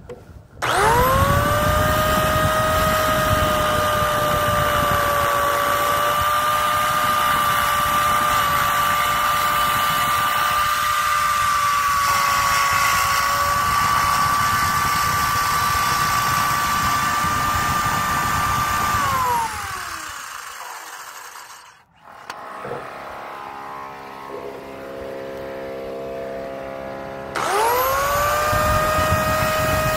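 Small Rockwell circular saw's electric motor spins up quickly to a high, steady whine and runs for about eighteen seconds with the blade at the siding board. Its pitch then slides down as it coasts to a stop, and near the end it spins up again to the same whine.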